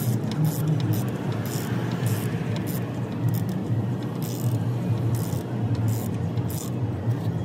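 Metal socket and ratchet clinking and clicking on the oil cooler line's fitting bolt as it is turned, in short irregular clicks over a steady low hum.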